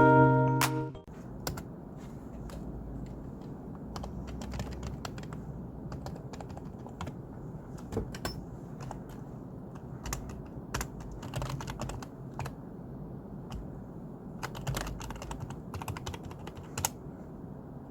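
Typing on a computer keyboard: irregular clicking keystrokes over a steady low background noise.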